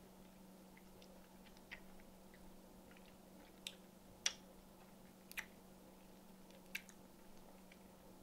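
Near silence: a low steady room hum with a few faint, sticky clicks from fingers handling gummy candy.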